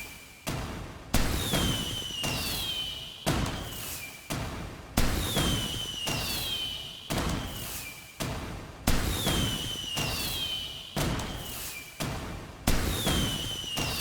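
Fireworks going off: a sharp bang about every two seconds, each fading away, with a whistling tone that falls in pitch after most bursts.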